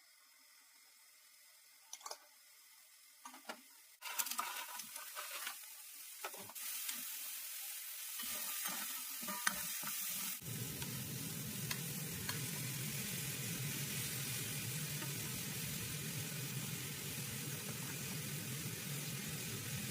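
Food sizzling as it fries in a pan, with scattered clicks and taps of utensils in the first half. About halfway in, a steadier, fuller rushing noise sets in and carries on.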